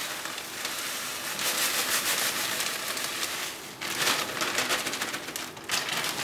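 Crushed butter-biscuit crumbs pouring and being shaken out of a plastic freezer bag into a plastic bowl, the bag rustling and crinkling: a dense run of fine crackles that dips briefly about four seconds in.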